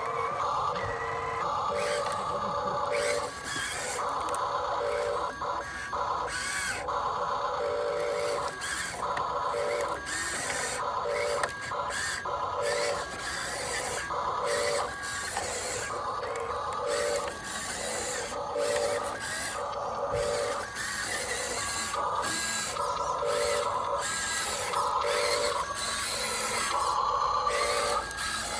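Small electric gear motors of a radio-controlled excavator whining in repeated short start-stop bursts as its arm, bucket and turntable are worked.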